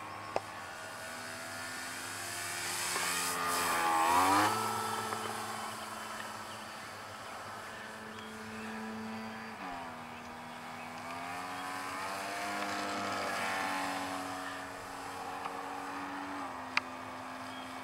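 Electric motor and propeller of a scratch-built Short Mussel RC model plane in flight, a steady pitched whine. It is loudest as the plane passes close about four seconds in, where the pitch drops sharply, and the pitch dips and climbs again near the middle. The motor has a loose bearing that gives it a very unique sound.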